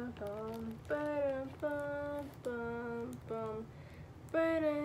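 A young female voice singing or humming a wordless tune: a string of short held notes, about two a second, with a brief pause about four seconds in.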